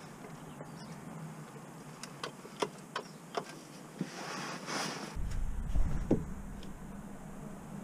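Steel trolley jack being worked by its long handle, giving a run of about five sharp clicks roughly every half second. Near the end comes a low rumbling rustle of handling noise as the camera is moved.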